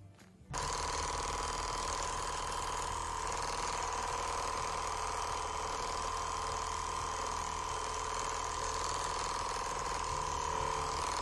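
Handheld percussive massage gun running steadily, with its high motor whine and the fast hammering of its head, pressed against a cat's body. It starts about half a second in.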